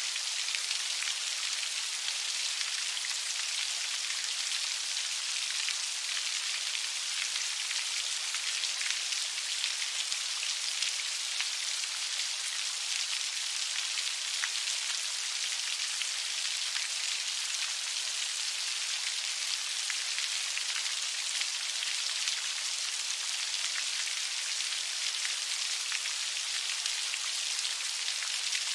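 Heavy rain falling steadily: a dense, even hiss of countless drops, bright and high with almost no low rumble.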